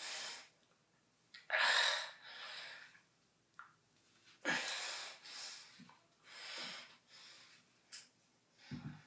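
A young man breathing hard with effort: about four heavy, noisy exhales a couple of seconds apart, forced out while straining through dumbbell curls.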